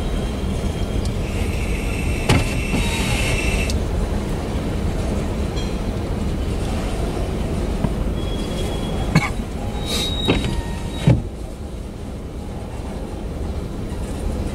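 Freight train boxcars rolling past: a steady rumble of wheels on rail, with a high squeal a second or so in and a few sharp clanks about 2 s in and again in a cluster around 9 to 11 s.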